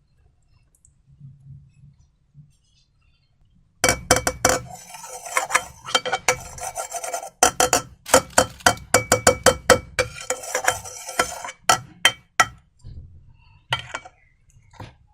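Slime being handled and worked, giving a dense run of sharp crackles and clicks that starts about four seconds in and thins to a few scattered clicks near the end.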